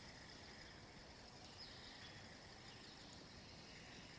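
Near silence: faint outdoor ambience with a faint, steady high tone and a faint short chirp about one and a half seconds in.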